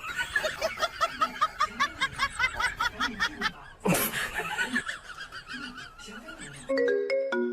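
A fast run of high-pitched laughter, short rising-and-falling bursts about five or six a second, broken by a sharp click just before the middle and fading into quieter laughs. Near the end a plinking ringtone-like melody starts.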